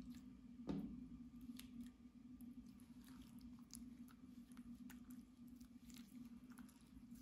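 Clear slime being kneaded, folded and stretched by hand: faint sticky squelches and small clicking pops, the clearest one near the start, over a low steady hum.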